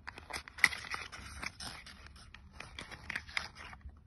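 Small paperboard skincare box being opened by hand and the bottle taken out: rustling, scraping and many small clicks, with one sharp click a little under a second in.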